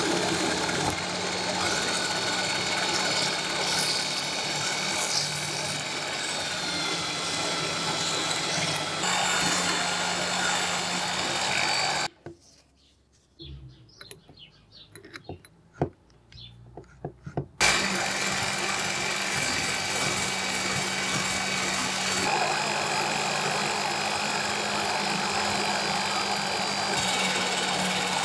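Electric drill running steadily, spinning the threaded screw of an old watchmaker's vise in its chuck while sandpaper is held against the threads. About twelve seconds in the drill stops for several seconds of clicks and knocks as the screw is re-seated in the chuck, then it starts again and runs steadily.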